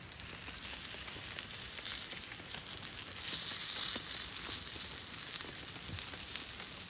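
Sausages sizzling and spitting in hot oil in a small cast-iron skillet over campfire embers, a steady frying hiss with small crackles throughout; the pan is hot enough that they brown quickly.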